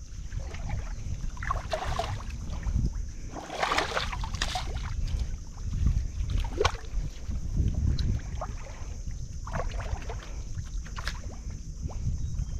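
Water splashing and sloshing irregularly as a wet fishing net is gathered by hand through shallow, muddy river water, over a low steady rumble.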